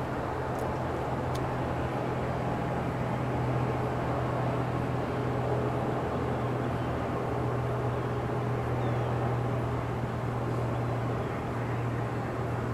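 A steady low drone of a running engine or motor, unchanging throughout.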